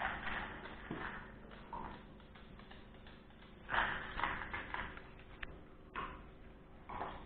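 Russian-European laika puppy eating dry kibble from a stainless steel bowl: irregular bursts of crunching and clinks against the bowl, the loudest about four seconds in.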